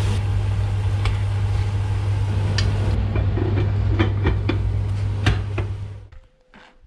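Pheasants and diced fruit sizzling in butter in a casserole pan over a steady low hum, with a spoon and then the lid knocking against the pan; the lid goes on about four seconds in. The sound fades out about six seconds in.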